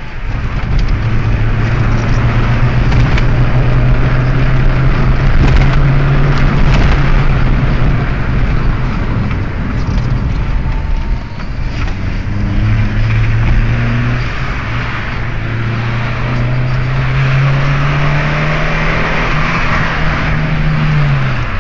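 Car engine under hard acceleration, heard from inside the cabin over loud road and wind noise, its note dipping at a gear change about halfway through, climbing steadily near the end, and falling away just as it ends.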